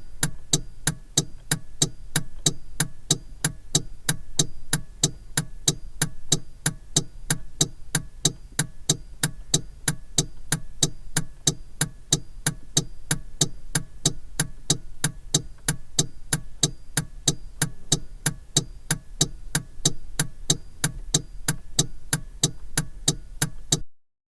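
Car turn-signal indicator clicking in an even rhythm, a few clicks a second, over a low steady hum; it cuts off suddenly near the end.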